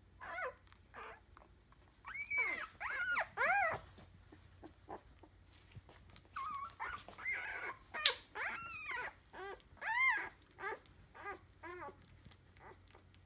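Week-old Entlebucher Mountain Dog puppies whimpering and squealing in a string of short, high-pitched cries that rise and fall in pitch. A burst of cries comes about two seconds in, then more from about six seconds until near the end. There is one sharp click about eight seconds in.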